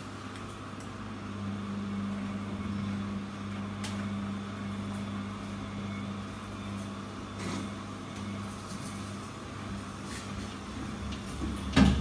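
Bosch washing machine running with a steady motor hum whose pitch and level swell for a few seconds, with a few light clicks. Near the end a rapid series of loud knocks, about four a second, sets in.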